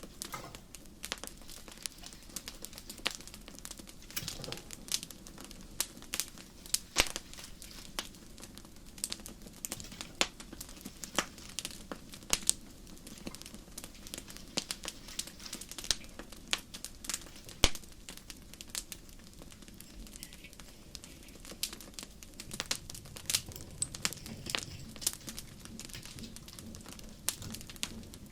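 Wood fire crackling: a low steady hiss with irregular sharp pops and snaps, one louder pop a little past the middle.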